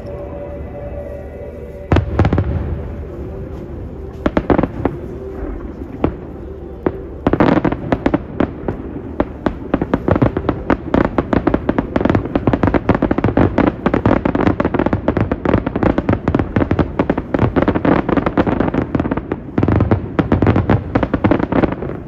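Aerial firework shells bursting: a few separate loud bangs at first, then from about seven seconds in a dense, rapid barrage of bangs and crackles that runs on, with music playing underneath.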